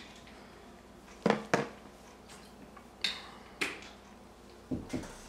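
Plastic water bottle handled: a few sharp plastic clicks and crackles, the two loudest about a second and a half in, then a couple of low thumps near the end.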